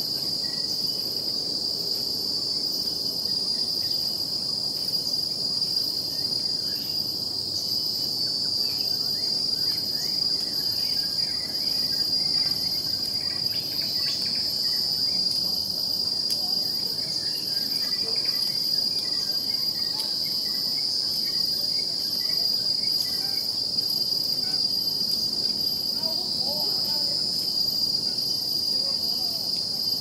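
A steady, high-pitched insect drone holds one pitch throughout and swells slightly now and then. A fainter, pulsing, higher tone runs above it, and faint scattered chirps sit beneath.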